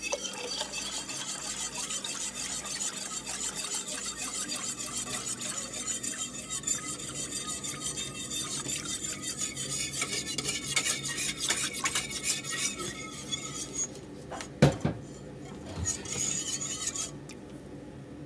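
Lye solution poured from a plastic pitcher into a pot of melted soapmaking oils: a steady rush of liquid with many light clinks, as the lye is added to the oils. About two-thirds of the way through there is one sharp knock, the loudest sound, followed by a softer thump and a utensil scraping in the pot.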